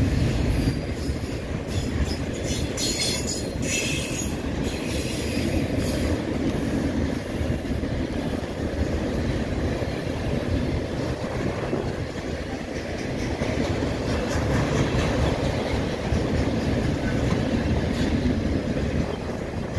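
Enclosed autorack freight cars of a BNSF vehicle train rolling past at close range, with the steady rumble of steel wheels on rail. A run of sharp clicks comes in the first few seconds.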